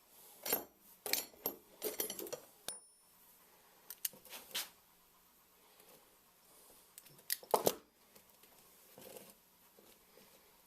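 Metal parts of a homemade spring compressor clinking and knocking together as they are handled and fitted, with a run of sharp clinks in the first few seconds and a louder knock about seven and a half seconds in.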